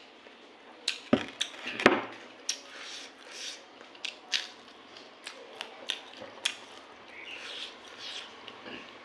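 Close-up eating sounds of a person chewing a mouthful of rice and curry: wet lip smacks and sharp mouth clicks, irregular and several a second at times, with softer chewing in between.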